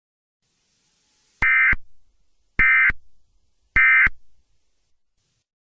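Three short, identical buzzing data bursts of an Emergency Alert System SAME digital code, about a second apart: the end-of-message signal that closes the warning.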